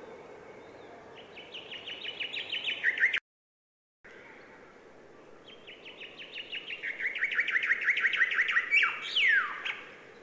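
A songbird singing two trilled songs of rapid repeated notes that step down in pitch: the first breaks off suddenly into a short dropout of total silence; the second is longer and ends in a few falling, slurred notes. A faint steady hiss lies underneath.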